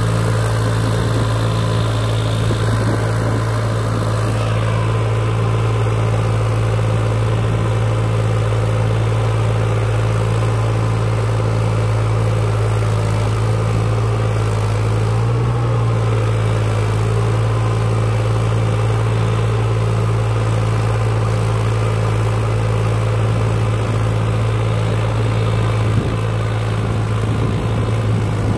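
Tractor engine idling steadily, a low hum that holds the same speed throughout.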